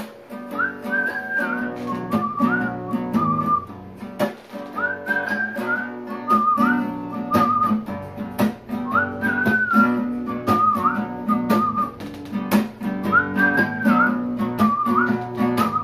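Acoustic guitar playing an intro, with a whistled melody over it: a short phrase that rises, dips and slides, heard four times, about every four seconds.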